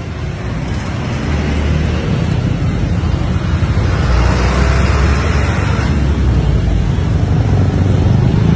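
A bus driving past close by: engine rumble and tyre and road noise build to a peak about four to five seconds in and stay loud.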